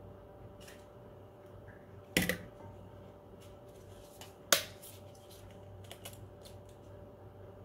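An egg knocked twice on the rim of a glass bowl to crack it: two sharp knocks about two seconds apart, the second ringing briefly. A few light clicks follow as the cracked shell is worked open.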